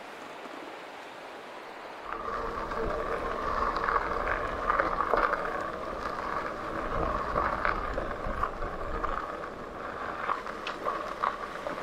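Creek water rushing for the first couple of seconds. Then a Magicycle electric cruiser bike rides along a gravel road: tyres on gravel with a steady motor whine, and wind rumbling on the microphone.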